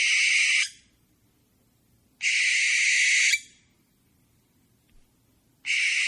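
Owl giving harsh, hissing screeches, repeated three times about two and a half seconds apart, each lasting about a second.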